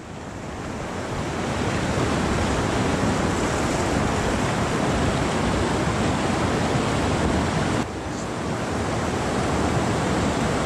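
Whitewater of a river rapid rushing in a steady roar, heard close to the water from a kayak's bow. The noise swells over the first couple of seconds, then holds steady.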